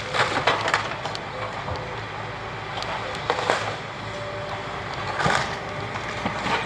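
Hitachi demolition excavator's diesel engine running steadily while timber and debris crack and crash as a building is pulled down; clusters of cracks come near the start, a little after three seconds, around five seconds in and again near the end.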